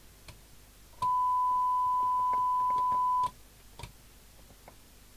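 A steady 1 kHz test tone from the CB radio's loudspeaker. It comes on about a second in and cuts off sharply about two seconds later: the squelch, set to full, opening on the signal generator's modulated test signal. Faint clicks sound around it.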